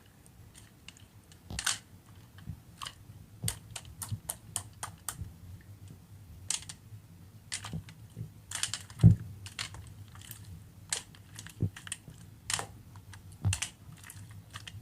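Irregular light clicks and taps, like typing on a keyboard, over a faint steady low hum.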